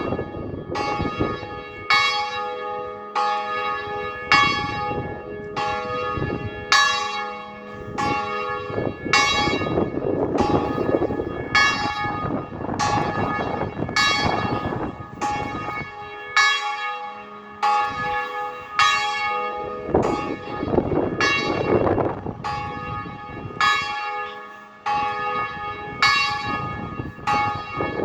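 Church bells ringing, struck about once a second, each stroke ringing on into the next. Gusts of wind swell and fade underneath.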